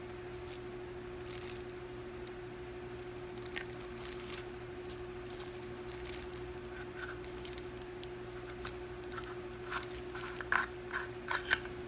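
Small clicks, scratches and scrapes as a Vivitar wide-angle conversion lens is turned over and fingered in the hands, growing busier and louder in the last couple of seconds. A steady hum runs underneath.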